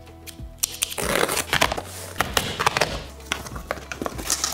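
Scissors slitting packing tape on a corrugated cardboard box and the flaps being pulled open: a run of crackling, scraping and tearing that starts about half a second in and is densest in the middle.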